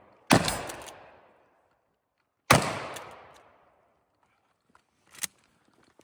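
Two shots from a 12-gauge Mossberg 500 pump-action shotgun, about two seconds apart, each dying away over about a second. A short sharp click follows near the end.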